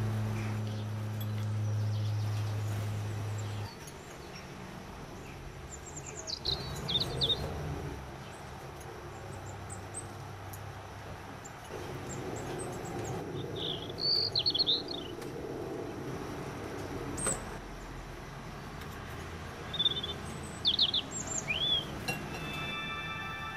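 Small songbirds calling at a seed feeder: short high chirps in several brief clusters, with quick up-and-down pitch sweeps. A low steady hum sounds at the start and cuts off about four seconds in.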